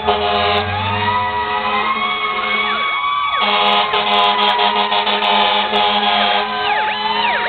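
Several fire truck sirens sounding at once, their pitches overlapping in slow rising and falling wails over a steady tone. Near the end they switch to quick up-and-down sweeps.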